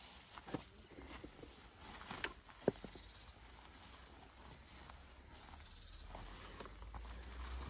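A loaded wheelbarrow lifted and pushed over grassy ground: a few faint knocks and rustles, the sharpest about two and a half seconds in, with a low rumble building near the end as it rolls. Faint high chirps sound now and then.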